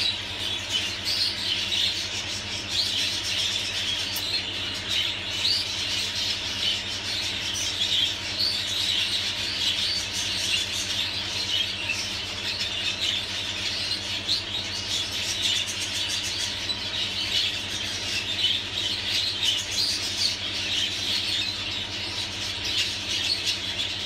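Budgerigars chattering and chirping, a continuous dense twittering of many short high notes.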